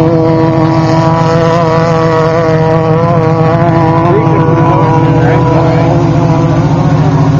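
Off-road race vehicle engine running steadily at close range, with an even low pulsing beat and a small rise in pitch about four seconds in.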